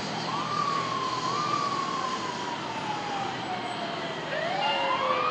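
Fire truck sirens wailing. One winds up quickly about a quarter second in and then slowly falls in pitch, rising briefly again just after a second. Another wail climbs near the end, with a higher siren tone above it.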